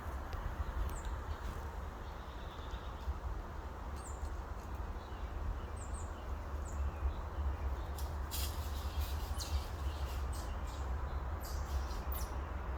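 Birds giving a few short, high, falling chirps over a steady low rumble, with two runs of quick clicks, one about eight seconds in and one near the end.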